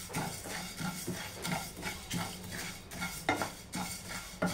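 Whole coriander seeds being stirred with a spatula in a dry nonstick frying pan as they are dry-roasted: the seeds scrape and rustle over the pan in quick, uneven strokes, with a sharper knock about three seconds in and another at the end.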